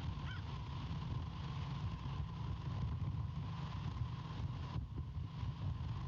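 Wind buffeting the nest-cam microphone: a steady low rumble. A faint short bird call can be heard near the start.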